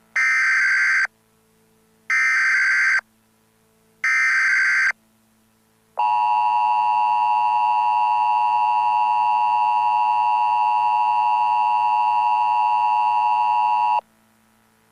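Emergency Alert System SAME header: three bursts of screeching data tones, each about a second long and about two seconds apart. They are followed by the EAS attention tone, a steady harsh tone held for about eight seconds that cuts off suddenly. Together they mark the start of an emergency alert broadcast.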